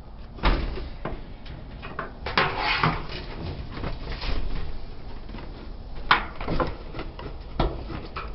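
Irregular knocks and clunks of dryer parts being handled and worked on during reassembly, with a busier run of clatter about two and a half seconds in.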